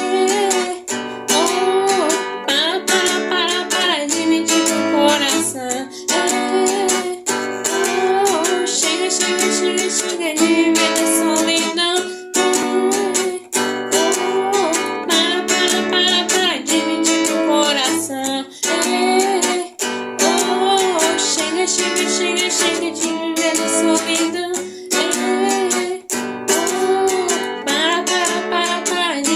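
Acoustic guitar strummed and plucked in a steady rhythm, with a sung melody over it.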